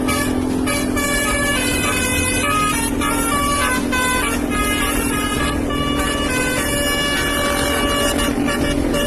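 Basuri telolet bus horn, a multi-tone musical horn, playing a tune of short notes that step up and down in pitch every half second or so, over a steady low drone.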